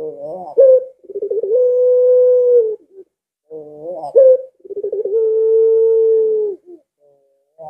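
A white ringneck dove (puter) cooing twice: each call opens with a few short rising notes and runs into one long, steady coo that drops in pitch at its end.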